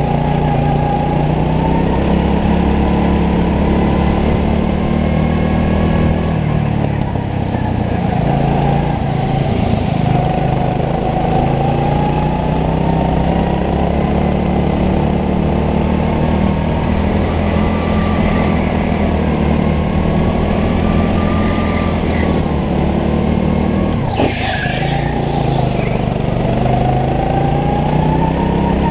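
Go-kart engine running under the driver, its pitch rising and falling as it accelerates out of corners and lifts for them. About 24 seconds in there is one sharp knock with a brief hiss.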